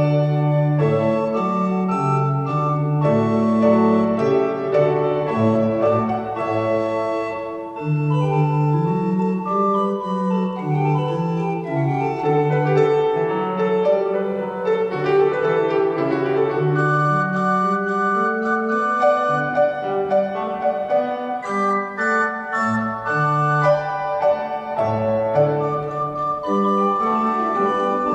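Positive organ and upright piano playing a duet: held organ notes over a stepping bass line, with piano notes woven in, continuously.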